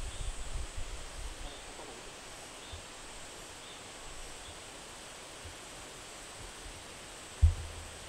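Outdoor ambience: a steady background hiss with irregular low rumbling bumps in the first second or so. A single sharp low thump comes near the end.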